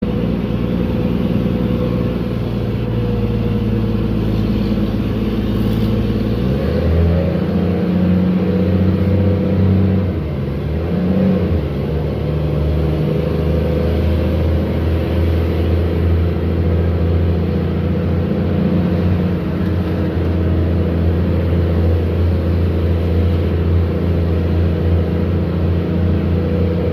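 Diesel engine of a Mercedes-Benz BT5 city bus running under way, heard from inside the bus, roaring a lot with a steady droning note. About six and a half seconds in the engine note shifts as the revs change, then holds steady with small wavers.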